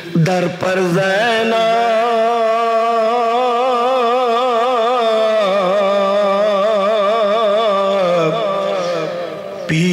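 A man's voice chanting a Urdu marsiya unaccompanied, holding one long note with vibrato that steps slightly lower about halfway through and trails off about a second before the end.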